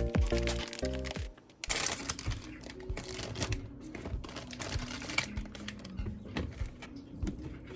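Background music with clear piano-like notes stops about a second and a half in. It is followed by a run of irregular light clicks and taps.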